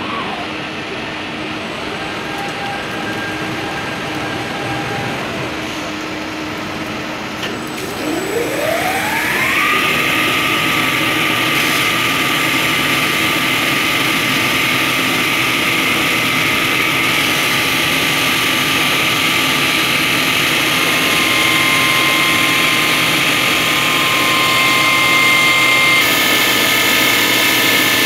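Breton Huracan stone and ceramic saw running with a steady machine hum. About eight seconds in, a saw-blade motor spins up with a steeply rising whine, which settles into a steady high whine over a hiss.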